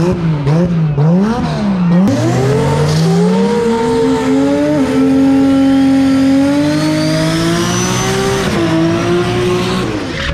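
A drag car's engine is blipped up and down a few times, then held at high revs with the rear tyres spinning in a smoky burnout, its pitch climbing slowly, and the revs drop off near the end.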